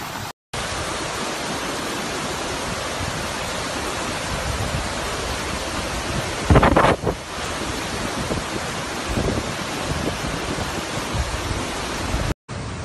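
Fast-flowing floodwater rushing, a steady dense noise, with a louder burst lasting about half a second about halfway through. The sound cuts out briefly just after the start and again near the end.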